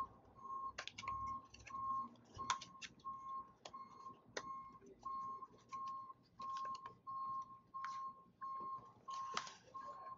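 Cardboard perfume box being opened by hand: irregular clicks, taps and crinkles as the flaps are lifted and the inner holder is pulled out. Behind it, a single-pitch electronic beep repeats nearly twice a second.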